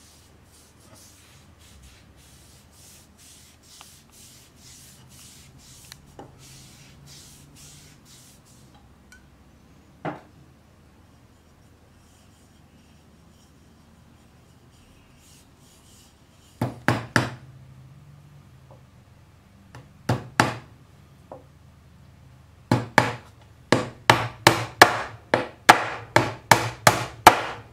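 A hammer driving nails into a wooden workbench. There are a few sharp blows in small groups, then a quick run of about a dozen strikes near the end. Before that come faint, even rubbing strokes on the hammer's wooden handle.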